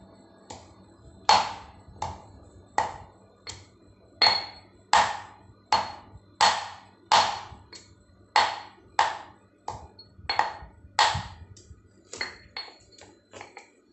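Stone pestle pounding in a stone mortar: a long uneven run of sharp knocks, each with a brief metallic-sounding ring, about one and a half a second, crushing the ingredients inside. The last few strikes are lighter.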